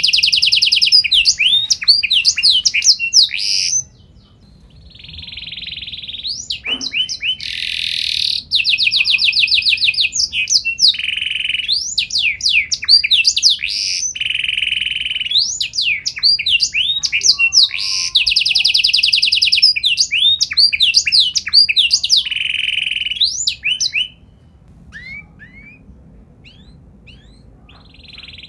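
Domestic canary singing a long, loud song of fast rolling trills and repeated swooping notes. It breaks off briefly about four seconds in, stops about four seconds before the end with only a few faint chirps, then starts a new phrase right at the end.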